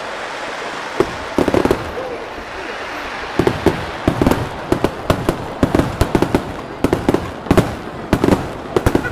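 Aerial firework shells bursting overhead: a quick run of sharp bangs with crackling in between. The bangs come thicker from about three seconds in.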